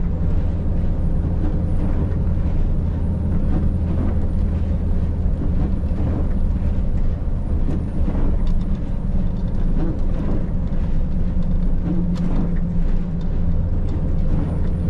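Scania R580's V8 diesel engine droning steadily, heard inside the truck's cab, with a few faint ticks over it.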